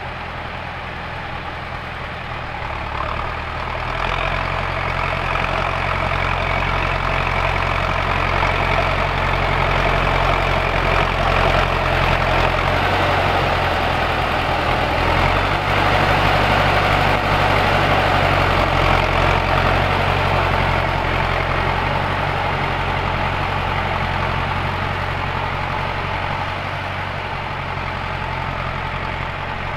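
T-40 tractor's air-cooled diesel engine running steadily under load while pulling a two-bottom plough. It grows louder about four seconds in, is loudest a little past the middle, then eases off.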